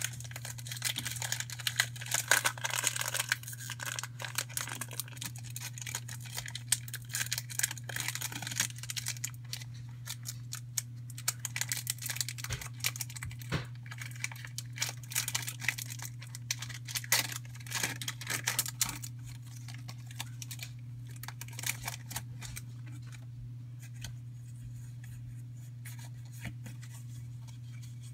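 Foil booster-pack wrapper crinkling and tearing as the pack is opened, with rustling and clicking of handled cards, over a steady low hum. The handling noise thins out after about twenty seconds.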